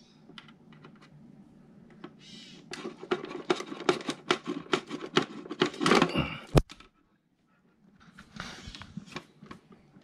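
A rapid run of small plastic clicks and rattles as spade connectors are worked off the terminals of a 12-volt rocker switch in an RV wall panel, ending in one sharp click about six and a half seconds in.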